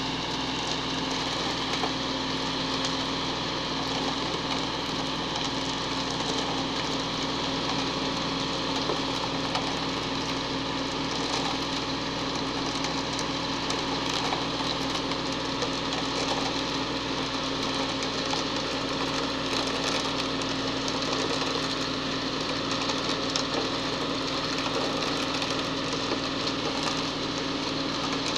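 Concrete mixer truck's diesel engine running steadily as the truck discharges wet concrete down its chute, with hoes and shovels scraping through the concrete.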